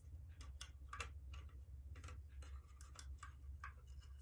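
Faint, irregular light clicks and taps of plastic toy playset pieces being handled and shifted, about three or four a second, over a low steady hum.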